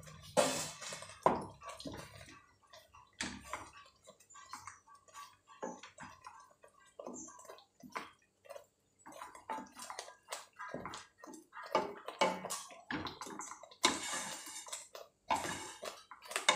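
Spatula stirring grated coconut and nut powder into hot mango pulp and sugar in a non-stick pan: irregular wet slaps and scrapes against the pan, with two louder knocks in the first second and a half.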